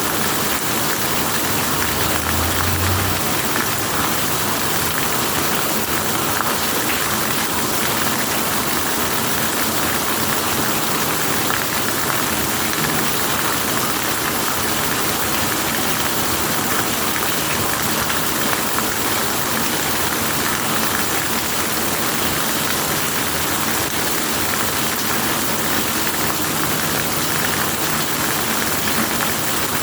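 Steady heavy rainfall, an even, unbroken hiss.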